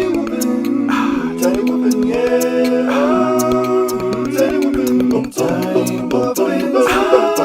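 A cappella vocal music: several voices singing chords, with short percussive clicks throughout.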